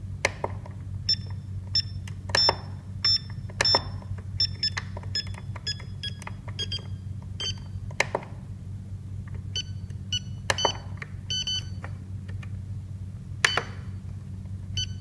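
Short electronic key beeps from an RC transmitter's beeper, mixed with clicks of the scroll roller as the menu is stepped through, over a steady low hum. About ten seconds in, the beeps turn lower in pitch as the key tone setting is changed.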